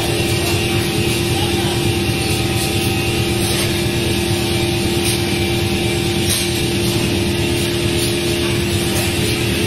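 Plywood-mill machinery running steadily: an even mechanical noise with a constant hum.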